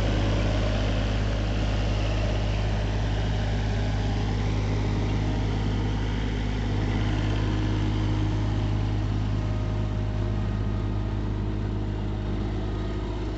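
Skid steer engine running steadily with a constant low hum as the machine turns in place with a part-filled bucket of sand.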